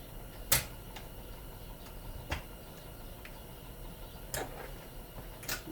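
Four sharp, separate clicks of a small screwdriver prying and picking a chunk of plastic off a plug's brass prong, the first the loudest, about half a second in.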